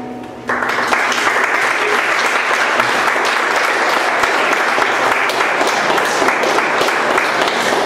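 Small audience applauding, starting abruptly about half a second in as the acoustic guitar's final chord dies away, then holding steady.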